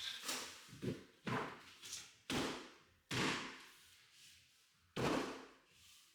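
About six knocks and thuds at irregular intervals as wooden floorboards are handled and fitted into place.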